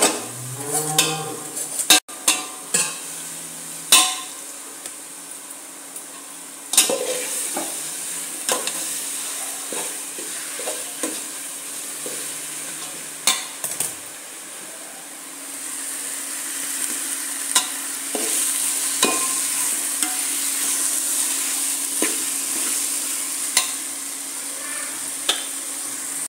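Oil sizzling in a steel pot as boiled ambadi (gongura) leaves fry with ginger-garlic paste, while a metal spoon scrapes and clicks against the pot and strainer. The sizzle grows louder about two-thirds of the way through.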